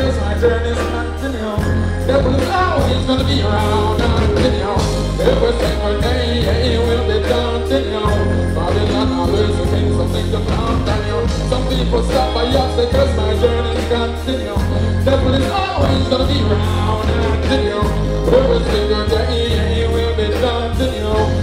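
Live band music with a singer's vocals through a concert PA: heavy bass and a steady drum beat under the vocal line.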